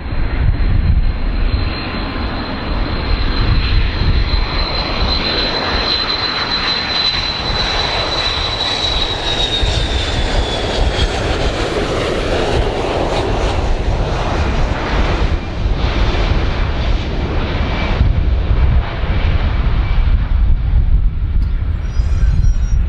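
Boeing 727's three JT8D low-bypass turbofan engines on final approach: a loud, steady jet roar with a high whine that drops in pitch about ten seconds in as the plane passes by.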